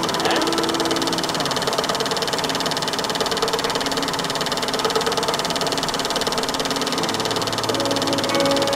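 Carbon-arc film projector running, its mechanism clattering rapidly and steadily as the film runs through.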